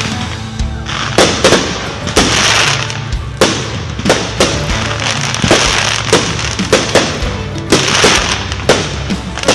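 Aerial firework shells bursting in quick succession: a steady run of sharp bangs, about two a second, with crackling and hissing between them.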